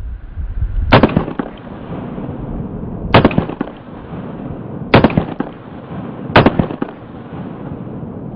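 Four pistol shots from a Springfield XD-S 9mm with a 3.3-inch barrel, firing 124-grain Gold Dot hollow-point handloads, spaced about one and a half to two seconds apart; each sharp report trails off in a short echo.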